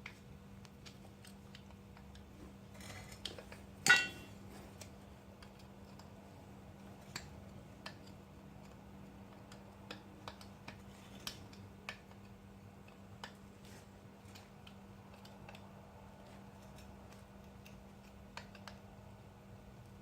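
Hand tools and small metal engine parts clicking and ticking while bolts on a motorized bike engine's cover are worked, with one much louder metal clink that rings briefly about four seconds in. A faint steady hum runs underneath.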